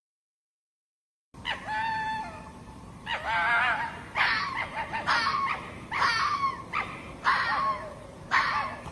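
Hoary fox (Lycalopex vetulus) calling: a series of high, wavering yelping cries, about one a second, starting just over a second in.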